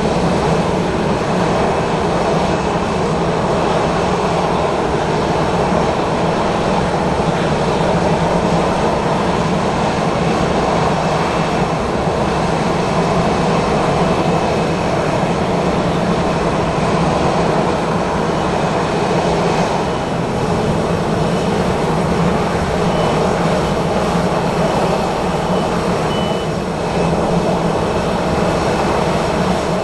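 Airliner jet engines running steadily: an even rushing noise with a faint high whine.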